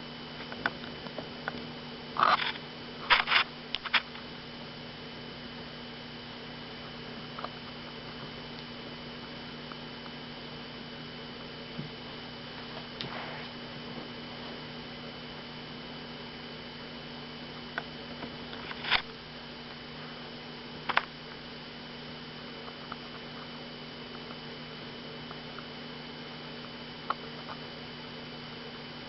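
Steady electrical hum from the camcorder, broken by a few brief scuffs and taps as a cat plays with a feather toy: a quick cluster a few seconds in, then single ones now and again.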